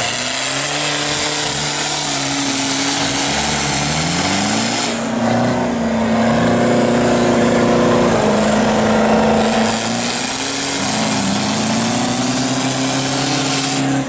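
Engines of off-road 4x4 trucks stuck in a mud pit revving, rising and falling in pitch with a higher steady hold partway through.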